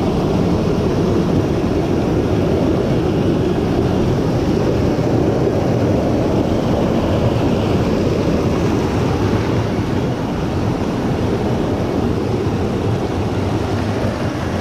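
Loud, steady roar of whitewater pouring over a small cascade in a rocky mountain stream, heard close up.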